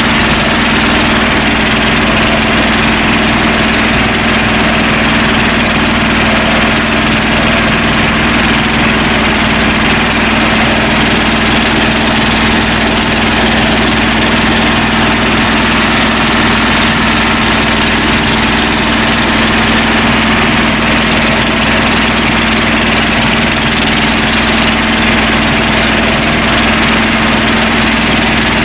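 Engine of a BJR Falcon 40 articulated tractor running steadily, heard from the driver's seat as the tractor works a rotovator through the soil.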